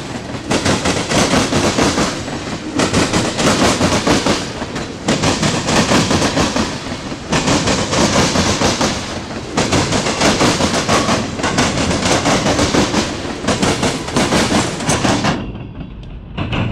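Freight cars, tank cars then boxcars, rolling past close by on steel wheels over the rails. The noise swells and eases about every two seconds and drops off sharply near the end.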